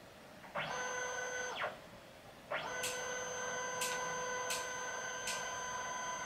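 Printer running: a motor whine at a steady pitch that starts about half a second in, stops after about a second, and starts again about two and a half seconds in. Four sharp clicks sound over the second run, about a second apart.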